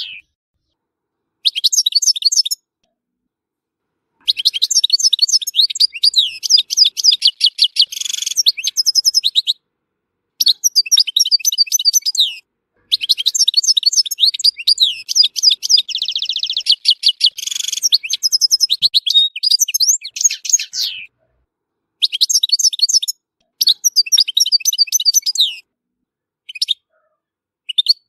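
European goldfinch singing: long phrases of rapid, high twittering and trills, with a buzzy stretch about halfway through. The phrases are broken by several short gaps of dead silence.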